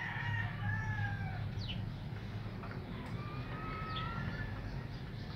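Red junglefowl calling: two drawn-out pitched calls about a second long each, with short sharp chirps between them, over a steady low hum.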